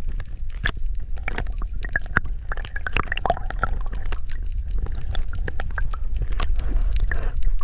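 Water sloshing and gurgling, with many small splashes and clicks over a steady low rumble.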